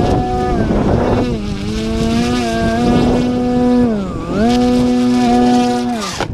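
Propeller and motor of a 3D foam RC airplane whining while it hangs on the prop, the pitch rising and falling with the throttle and dipping sharply about four seconds in before coming back up. The whine cuts off near the end as the plane comes down nose-first onto the tarmac.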